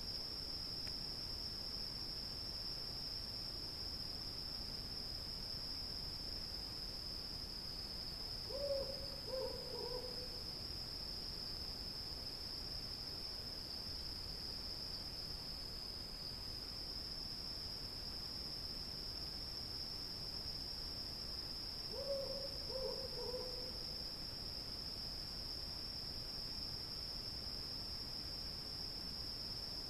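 Crickets chirping in a steady high chorus. A low hooting call of three or four notes sounds twice over it, about eight seconds in and again about twenty-two seconds in.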